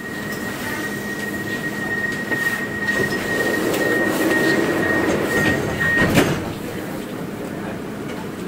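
Door-closing sequence on a Milan Metro Line M5 driverless train: a steady high warning tone for about six seconds while the sliding doors run shut, ending in a knock as they close.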